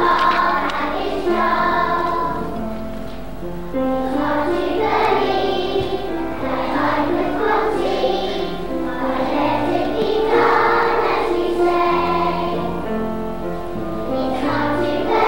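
Children's choir singing a song with musical accompaniment, the melody moving in held notes without a break.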